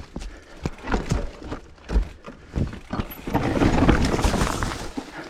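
Mountain bike on a rough, muddy downhill trail: a run of sharp knocks and clunks, then nearly two seconds of rough rushing noise about three seconds in.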